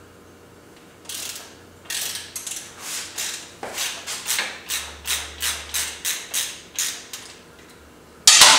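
Socket ratchet wrench clicking in quick repeated strokes, about three a second, as a nut is backed off. A single loud clatter comes near the end.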